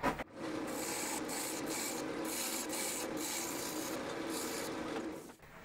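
Wood lathe running while a chisel cuts shallow grooves into the face of a spinning oak disc. The cutting hiss swells and fades several times, and the sound stops about five seconds in.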